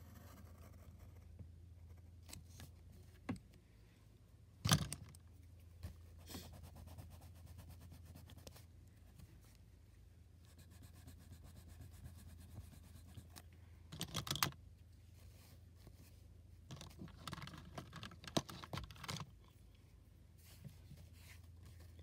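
Faint scratching and tapping of a pencil on paper while a drawing is sketched, in short bursts: the loudest about five seconds in, around fourteen seconds, and in a cluster near the end. A steady low hum runs underneath.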